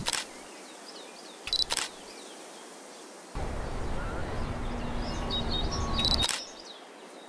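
Camera shutter clicks, three in all, the middle one a quick double click, over quiet hiss. From about halfway in, a steady outdoor ambience with a low hum and faint high chirps runs under the clicks.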